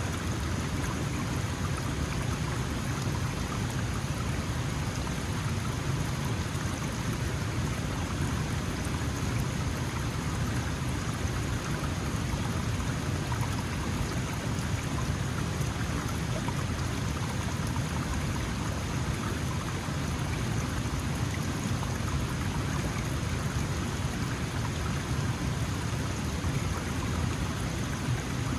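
Small mountain stream flowing: a steady, even rush of water over stones.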